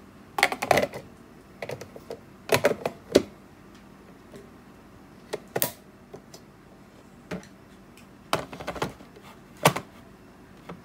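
Hard plastic clicks and clatter as the parts of a Ninja CREAMI are fitted together and twisted to lock: the outer bowl lid latches onto the pint container and the bowl is locked into the machine. The sound comes as several short bursts of clicks a second or two apart.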